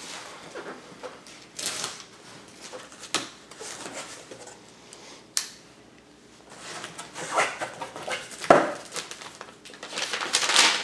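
A knife slitting packing tape on a cardboard box, with short scrapes and a sharp click about five seconds in, then the cardboard flaps being pulled open and tissue paper rustling near the end.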